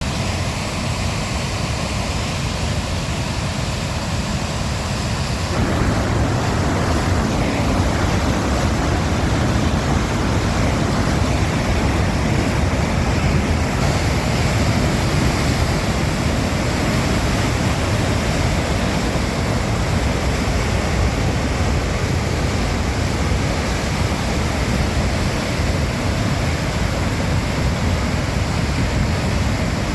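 Waterfall: loud, steady rush of falling water, growing louder and deeper about five and a half seconds in.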